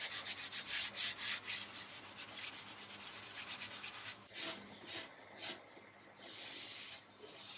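Sanding sponge rubbed by hand back and forth over a veneered cabinet door, in quick strokes about four a second, then slower, longer strokes along the edge in the second half. This is the hand sanding of the last varnish off the door, done by hand so as not to burn through the veneer.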